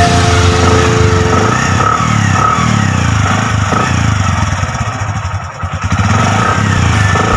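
Bajaj 100 motorcycle's single-cylinder four-stroke engine running steadily, its level dipping briefly about five seconds in before picking back up.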